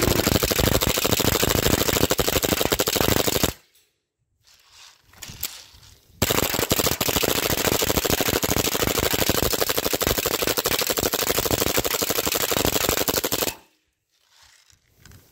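Airsoft gas-blowback Glock pistol firing full-auto on air from a tank, fed from a 3D-printed drum magazine: a rapid burst of about three and a half seconds, then, after a pause of a couple of seconds, a longer burst of about seven seconds.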